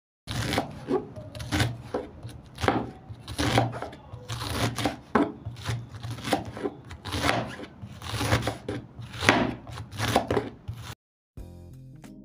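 Kitchen knife shredding a head of white cabbage on a wooden cutting board: a steady run of crisp slicing strokes, about two a second, each ending as the blade meets the board. The cutting stops about a second before the end, and music starts.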